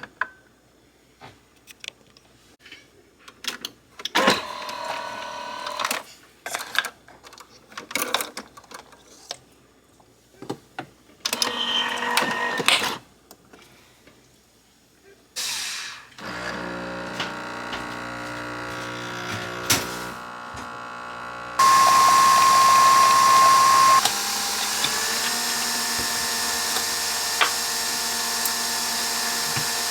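Coffee being made: clinks and knocks of cups and utensils, then a small electric coffee appliance running steadily for the second half. About two-thirds of the way in it runs louder with a high whine for a couple of seconds, then settles again.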